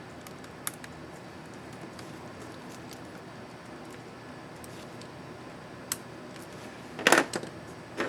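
Small plastic clicks and snaps from an ASUS X551C laptop keyboard's Enter keycap and its clips being worked: a few faint ticks, then a quick cluster of louder snaps about seven seconds in.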